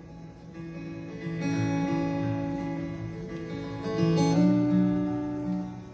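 Acoustic guitar playing a slow instrumental passage: a few strummed chords, each left to ring.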